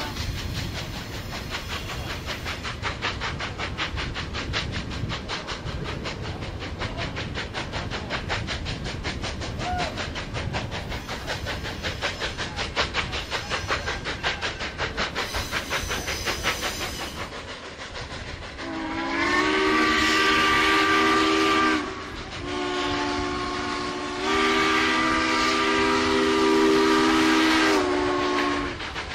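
Southern Pacific 4449, a GS-4 4-8-4 steam locomotive, working at speed with rapid, even exhaust beats (stack talk), heard from a car further back in the train. About two-thirds of the way in, its chime steam whistle sounds a chord in three blasts, the last the longest and loudest.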